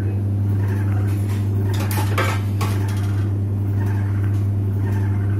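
Samsung washing machine in its spin cycle: a steady hum with irregular metallic clattering and rattling, heaviest about two seconds in. This is the problem noise in spin.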